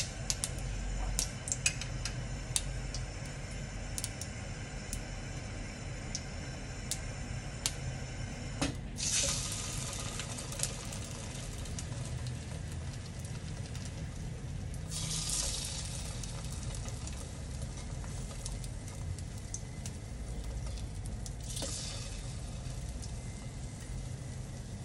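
Egg-dipped bread slices laid one at a time into hot oil in a wok: three sudden bursts of sizzling, about nine, fifteen and twenty-one seconds in, each settling to a steady low sizzle. A few light ticks come before the first burst.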